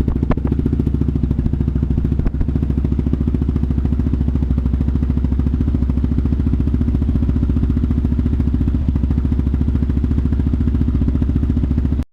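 Yamaha Raptor 700's single-cylinder four-stroke engine idling steadily through a Big Gun Evo R full dual aftermarket exhaust, with an even, fast thump of exhaust pulses. It cuts off suddenly at the end.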